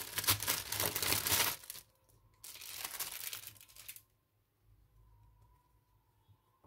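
Clear plastic bag and paper wrapping crinkling as a small cloth mask is pulled out of them, in two spells of handling about a second apart.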